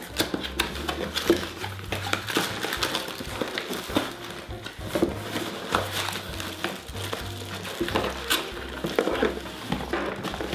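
Background music with low bass notes, over the clicks and crinkles of a cardboard box and plastic wrap being handled as a security camera is unpacked.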